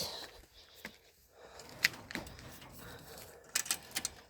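Faint scattered clicks and rustles, with a small cluster of quick clicks near the end.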